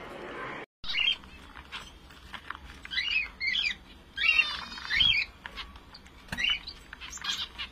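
Finches giving short, repeated chirping calls, with a quick buzzy run of notes about halfway through.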